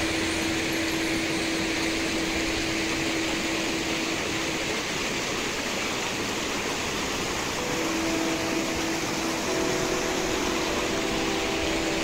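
Steady rushing of a river flowing over rocks. A few faint held tones come in over the last few seconds.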